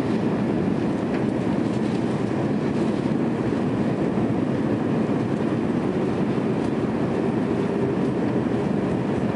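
Steady cabin noise inside an Airbus A300 airliner on approach with flaps extended: an even, unbroken rumble of engines and airflow, heaviest in the low range.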